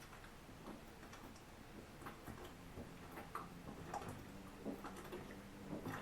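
Faint, regular gulping of a man chugging soda straight from the bottle, each swallow a soft click, about one or two a second.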